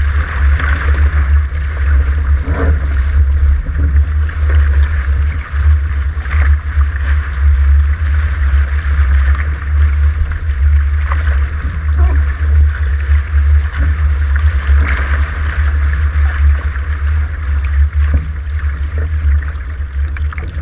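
Continuous rumble of wind buffeting the camera's microphone over a steady hiss of water rushing past a sailing catamaran's hull at speed, with occasional faint splashes.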